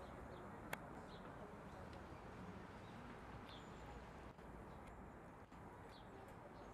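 Faint outdoor background noise with a few brief, high bird chirps spread through it, and one sharp click just under a second in.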